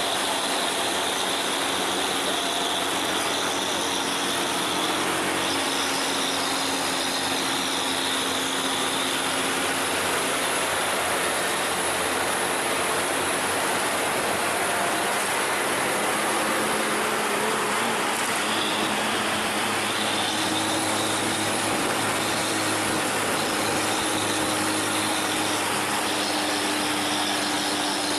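Coach buses' diesel engines running under load on a climb, with steady road and tyre noise and a low engine drone.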